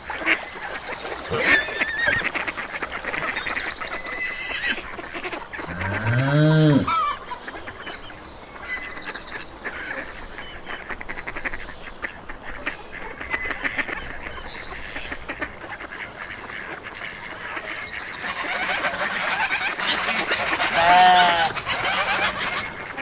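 Farmyard poultry calling over one another, with geese honking, loudest near the end. About six seconds in comes a single loud, lower call that rises and falls.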